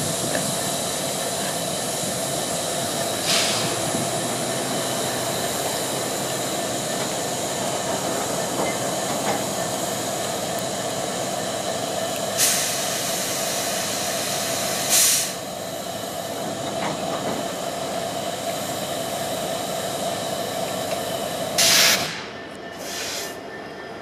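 Freight train diesel locomotives running with a steady engine drone, broken by four short bursts of hissing air from the air brakes. The drone drops off suddenly near the end.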